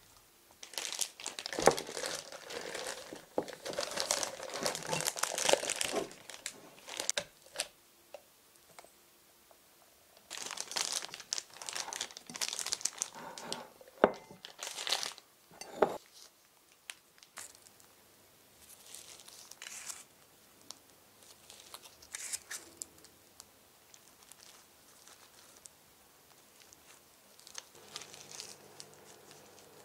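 Plastic piping bag crinkling and rustling as it is handled and filled with batter, loudest in two long spells, then only faint light handling sounds.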